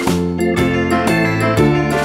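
Background music: an instrumental passage of a gentle children's tune, with notes changing about every half second.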